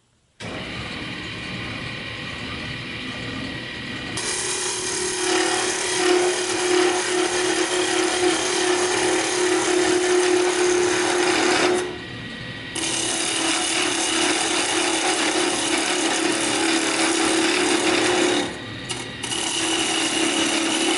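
Wood lathe running, starting suddenly about half a second in, with a parting tool held flat cutting grooves into a spinning spindle of very soft wood. A steady hum turns into a louder, rough scraping cut from about four seconds in, and it drops away briefly twice as the tool comes off the wood.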